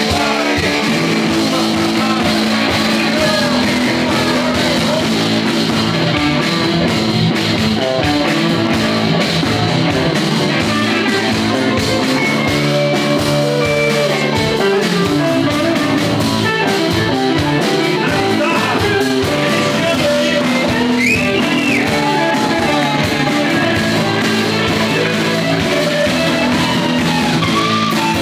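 A rock band playing live: electric guitars, drums and a male singer on a microphone, loud and continuous.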